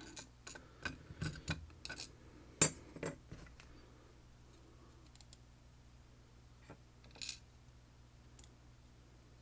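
Small metal lock parts (pins and sliders) clicking and clinking as a lock core is taken apart: a quick run of light clicks in the first three seconds, the sharpest about two and a half seconds in, then a few scattered ticks.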